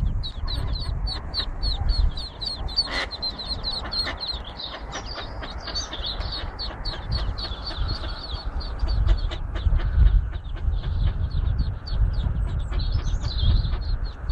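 A brood of mallard ducklings swimming together and peeping: short, high, repeated peeps, several a second, that never let up. A low rumble runs underneath.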